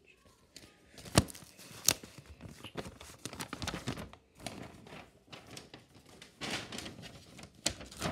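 Paper and cardboard packing rustling and crinkling irregularly as a parcel is unwrapped by hand, with two sharp clicks about a second and two seconds in.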